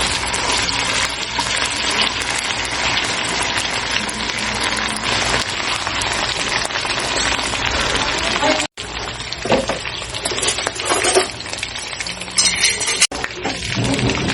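Chicken sizzling as it fries in a pan, a dense steady crackle. The sound cuts out briefly twice, about nine and thirteen seconds in, and is more uneven after the first break.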